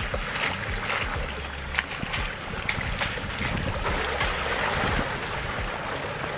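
Toyota RAV4's mud-terrain tyres churning and sloshing through a muddy puddle, a rushing spray of water with scattered sharp knocks.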